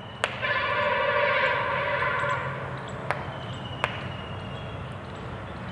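Chalk on a chalkboard as numbers are written: a few sharp taps, and a steady pitched whine for about two seconds just after the first tap.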